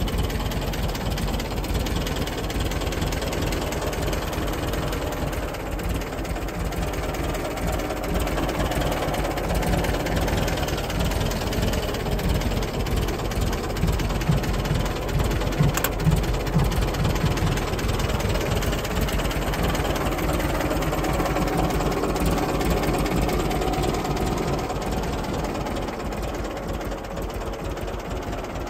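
David Brown RAF aircraft tug's petrol engine idling steadily, with a few slightly louder pulses about halfway through.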